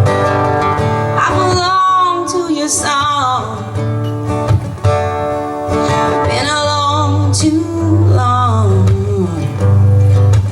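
Live acoustic band music: strummed acoustic guitar under a bending, wavering lead melody line, the instrumental intro before the first verse.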